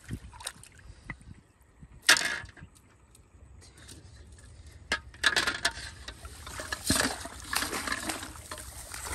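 Splashing and sloshing in shallow muddy water: a sudden splash about two seconds in, then near-continuous sloshing of feet wading from about five seconds in.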